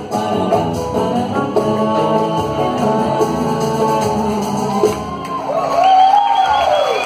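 A woman sings live with a band into a microphone. About five seconds in the band thins out and she holds a loud closing phrase that slides up and down in pitch.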